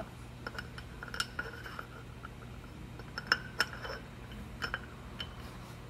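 Steel T-bolts clinking and scraping as they are slid around the T-slot of a Bridgeport step-pulley milling head, in scattered light metallic clicks, the sharpest about three seconds in. A steady low hum lies underneath.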